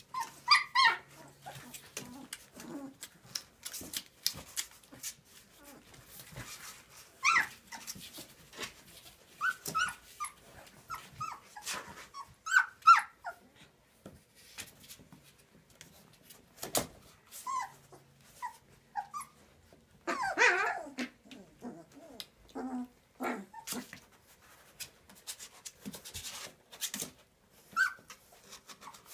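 A litter of 19-day-old Transylvanian Hound puppies whining and squeaking in short, high calls that bend in pitch, with a longer, rougher call about twenty seconds in. Clicks and scuffling come from the pups moving on the bedding.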